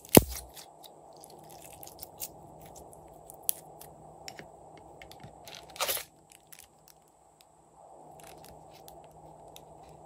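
Slime being squeezed and worked by hand: sticky crackling and popping clicks, with a sharp pop right at the start and a louder crunch about six seconds in.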